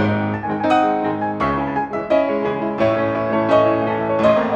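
Grand piano played four hands by two pianists: a flowing passage of full chords, with new chords struck every second or so and ringing on beneath.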